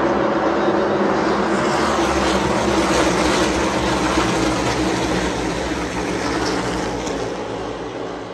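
A pack of NASCAR Cup Series V8 stock cars running past at speed, a dense, steady engine drone that eases off somewhat near the end as the pack moves away down the straight.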